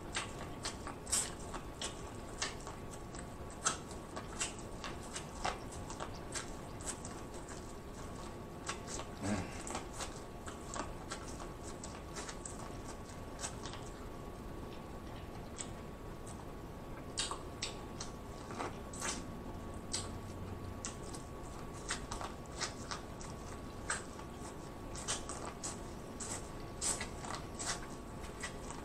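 Biting and chewing corn on the cob from a seafood boil: irregular small crunches and clicks several times a second, over a faint steady hum.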